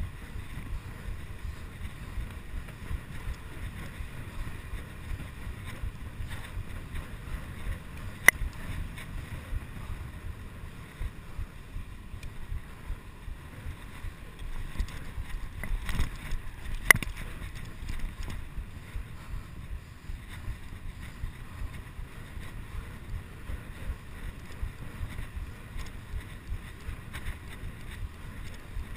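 Wind buffeting the microphone of a chest-mounted camera on a fast bicycle ride, a steady low rumble mixed with tyre noise on the path. Two sharp clicks stand out, about eight and seventeen seconds in.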